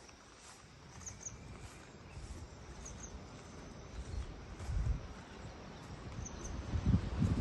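Quiet outdoor ambience: an uneven low rumble with faint, short, high chirps recurring about once a second.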